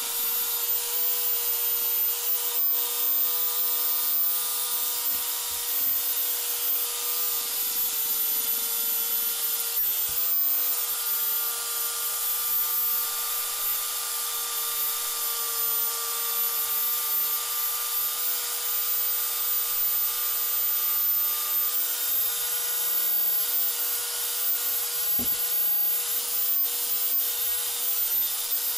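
Chicago Electric finger sander (a narrow-belt electric file) running steadily with a constant motor whine, its belt hissing against carved wood as it sands the snout of a small carved bear.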